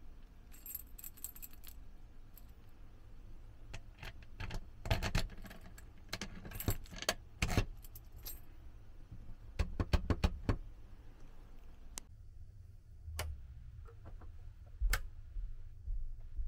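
Light clinks and clicks of small hard objects being handled, coming in irregular clusters over a low background hum.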